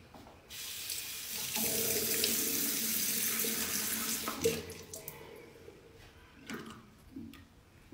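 Bathroom sink tap running into the basin. It starts about half a second in, runs harder from about a second and a half, and is shut off after about four and a half seconds, followed by a few small knocks at the sink.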